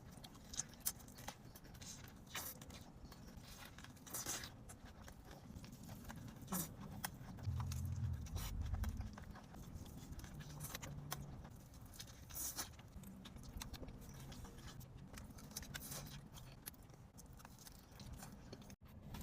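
Close-miked eating sounds of a burger being bitten and chewed: scattered wet clicks and crackles, with a low muffled rumble about eight seconds in.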